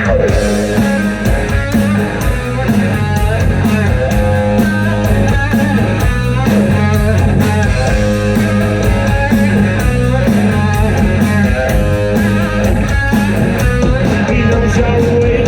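Rock band playing an instrumental passage: electric guitar riffs over bass and a steady drum beat.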